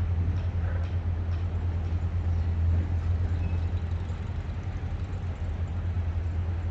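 Outdoor city ambience: a steady low rumble with the hiss of water fountains, faint distant knocks of construction work, and a brief bird chirp about three and a half seconds in.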